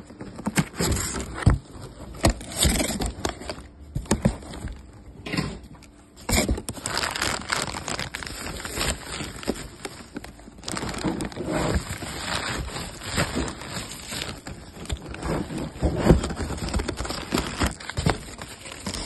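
Bubble wrap and plastic packaging crinkling and rustling as it is pulled off an item by hand, with the scraping and knocking of a cardboard box being handled.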